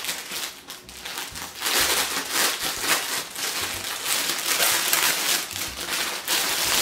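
Clear plastic packaging bag crinkling and rustling irregularly as a garment is handled and pulled out of it by hand.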